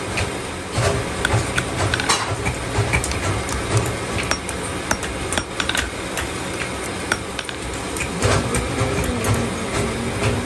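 Hand hammer striking a red-hot iron strip, held in tongs against a pointed stake on a steel anvil, while forging a wiring hook: a run of sharp metal-on-metal strikes, about two a second and unevenly spaced.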